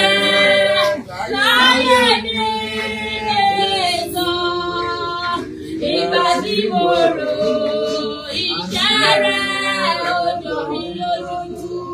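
Women singing without instruments, with long held notes that slide up and down in pitch.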